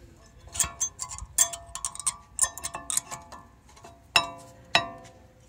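Metal clicking and clinking as a new brake pad's steel backing plate is pushed into the caliper bracket against its spring clips, a quick run of small clinks followed by two sharp ringing clicks near the end as the pad seats.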